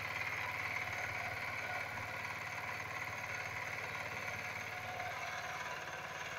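VST Shakti 130 DI power tiller's single-cylinder diesel engine running with an even, rapid chug, under load as the rotary tiller digs into the soil.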